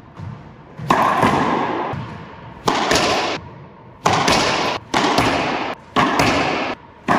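Racquetball shots echoing in an enclosed court: about six sharp cracks of racquet on ball and ball off the walls. Each is followed by a ringing echo that cuts off suddenly.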